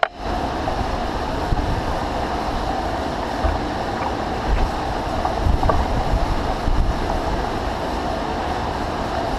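Large engine lathe running a cut on a heavy hydraulic cylinder, parting off its welded blind end: a steady mechanical drone with low rumble and a few faint ticks.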